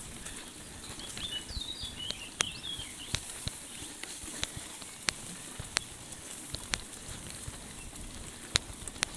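Mountain bike rolling over a bumpy, wet grassy track: a steady hiss of the ride with scattered sharp clicks and knocks. A bird chirps briefly about one and a half to three seconds in.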